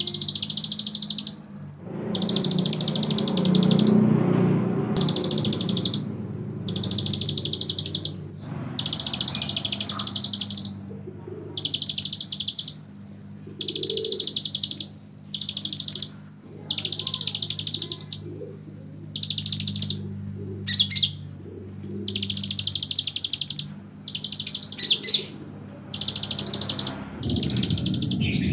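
Kolibri ninja sunbird singing a high, dense buzzing trill in one-to-two-second phrases over a dozen times with short gaps, its imitation of a bren cicada. Twice in the later part it breaks into a short run of quick sharp chirps. A low steady hum underneath.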